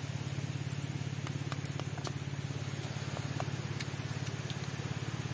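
Small engine running steadily with a low hum and a fast, even pulse, with a few faint scattered clicks.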